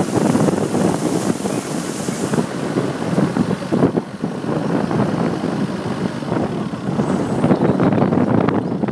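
A car driving through shallow floodwater: the engine running under the rush and splash of water, with wind buffeting the microphone. A hiss of spray is strongest for the first two seconds or so.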